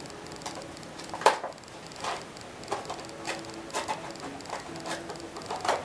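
Scattered clicks and light rustles of a small wrapped gift being unwrapped and handled by hand, the sharpest click about a second in.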